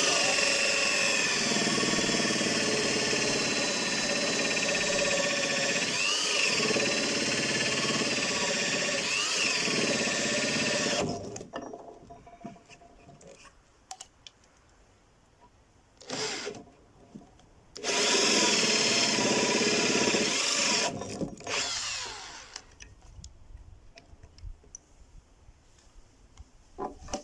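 Electric drill with a 40 mm bit boring into wood for the ends of a square mortise. It runs steadily for about eleven seconds, with its pitch dipping briefly twice under load. It stops, gives a short burst, then runs again for about four seconds.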